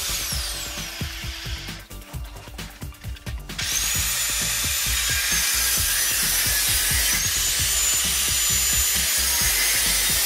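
Angle grinder with a cutting disc cutting a rusted steel exhaust pipe. Its whine falls as it winds down at the start, then about three and a half seconds in it spins up again to a loud, steady high whine and grinds on through the pipe.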